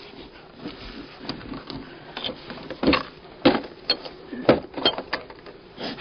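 Wooden beehive boxes and lids knocking and scraping as they are lifted and set down, with a cluster of sharp knocks from about halfway through.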